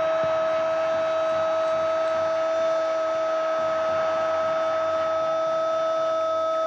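A single loud, steady tone held without a break, over an even hiss of background noise such as a crowd's roar.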